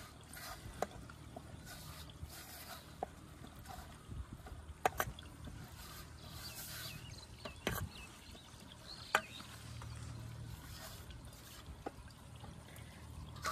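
Hands squishing and kneading wet bait mix in a steel bowl, with a few sharp clicks against the metal bowl, over a faint steady low rumble.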